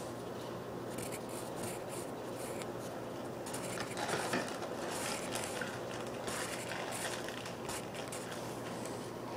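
Scratchy strokes of a drawing tool on paper as lines are drawn, irregular and busier from about three and a half seconds in, over a steady background hum.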